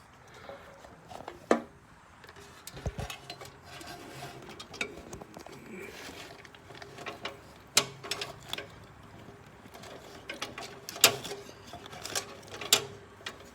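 Scattered clicks and light knocks of hand work on a riding mower's wiring, as a wire terminal is fastened under a screw on the key switch. A few sharper clicks stand out, several seconds apart.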